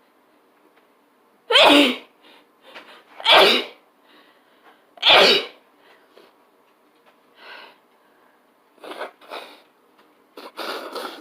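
A person sneezing three times in quick succession, each a loud, sudden sneeze under half a second long, spaced under two seconds apart. After them come a few much softer, short breathy sounds.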